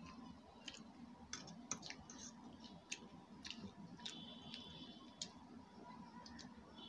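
Faint clicks of a steel fork against a stainless steel plate, about eight sharp, scattered taps as pieces are speared and lifted. One tap about four seconds in leaves the plate ringing briefly with a high tone.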